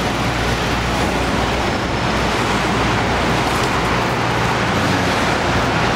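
City street traffic noise: a steady wash of engine and road sound with a low, even engine hum close by.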